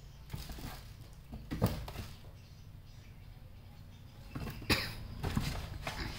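A kitten scrabbling over and into cardboard boxes: scattered light knocks and rustles of cardboard, with two louder thumps, one about a second and a half in and another later on.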